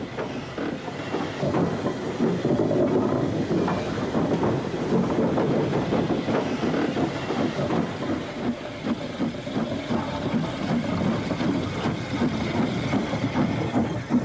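A small 0-4-0 tank steam locomotive working with a train of wagons, with a dense, steady clatter of wheels and couplings and some steam hiss.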